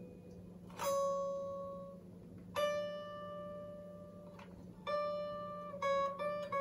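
Guitar plucked one high note at a time, each note ringing out and fading, with two notes in quick succession near the end. A steady low hum runs underneath.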